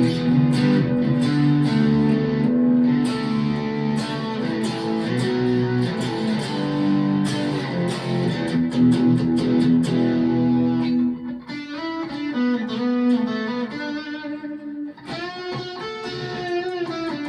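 Electric guitar, a Rockburn Strat-style, played through a Tone City Golden Plexi distortion pedal and amp: distorted chords for about the first ten seconds, then single-note lines and held notes.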